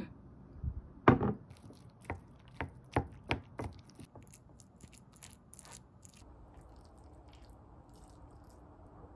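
Wooden spoon mixing rice and fried egg in a ceramic plate: a quick run of knocks and scrapes against the plate over the first few seconds, then lighter clicks.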